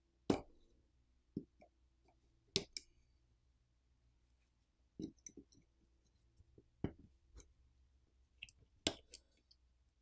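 Small metal hand tools clicking and tapping against the internals of an opened smartphone: about a dozen sparse, sharp clicks, some in quick pairs, over a very quiet background.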